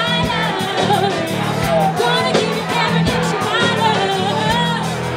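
Live rock band playing, with a woman singing lead into a microphone over regular drum hits and steady low bass notes.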